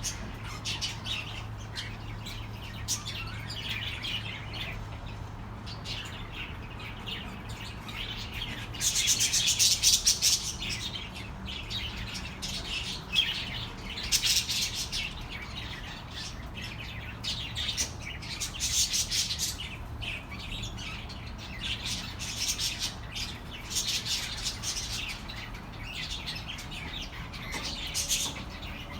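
Budgerigars chattering and chirping in bursts, loudest about nine to ten seconds in, over a steady low hum.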